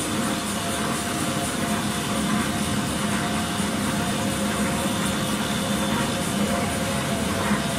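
Interfold dispenser napkin machine running: a steady mechanical drone with a constant whine.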